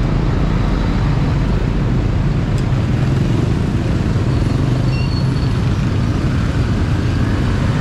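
Motor scooter engine running steadily while the scooter creeps through dense, slow traffic, with a constant hum of surrounding motorcycle and car traffic.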